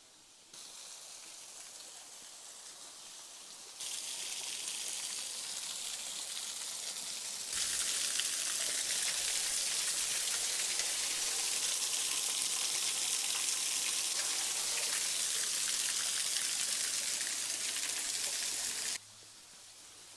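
Small forest creek waterfall splashing onto rocks: a steady hiss of falling water that gets louder in three sudden steps, loudest from about seven seconds on, then cuts off abruptly near the end.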